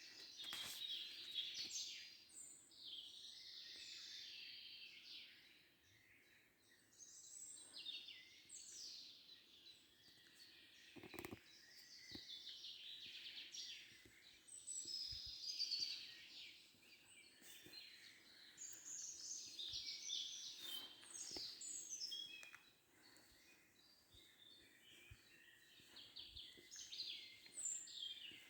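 Several songbirds singing and chirping at once, their short, high trills and chirps overlapping with little pause.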